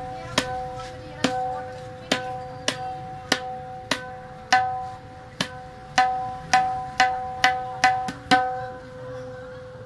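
Open ringing strokes on a newly made tabla dayan (right-hand drum). Each stroke sounds a clear, sustained tuned pitch with an overtone. There are about fifteen single strokes, spaced out at first and coming faster in the second half, and the last one rings out.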